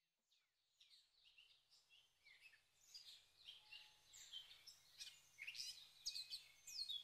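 Several small birds chirping and twittering in quick, high notes, faint at first and growing louder.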